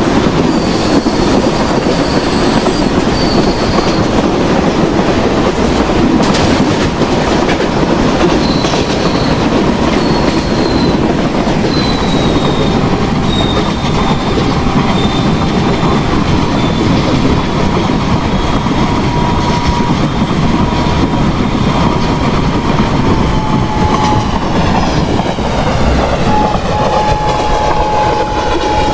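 An express passenger train running at speed: a steady rumble and clickety-clack of wheels on the rails, with thin, high squealing tones from the wheels that come and go and slowly fall in pitch.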